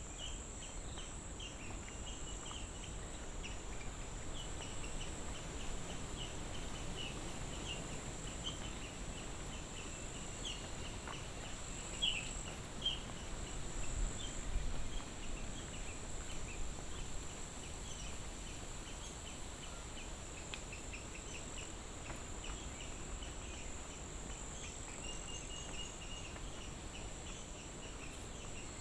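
Insects in rural outdoor ambience: a steady high-pitched drone with repeated short chirps over it, and a few louder clicks near the middle.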